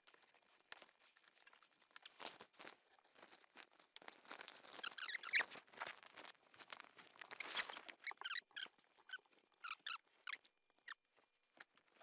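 Faint rustling of a Sunbrella canvas boat top as someone crawls around beneath it, with scattered small clicks and short high squeaks that come thickest around the middle and again a little later.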